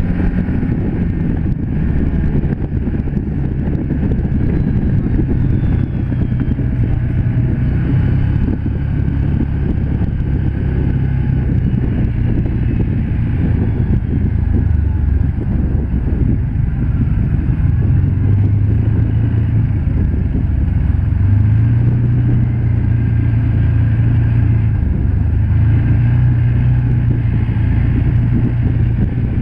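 Can-Am Commander 1000 side-by-side's V-twin engine running under way on a gravel road, heard from inside its open cab over steady ride noise. The engine pitch drops and rises a few times in the second half as the speed changes.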